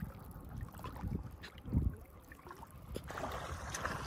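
Water splashing and lapping as a macaque swims, paddling through the canal water, with a surge of sloshing about three seconds in. Low, uneven rumbles of wind on the microphone run underneath.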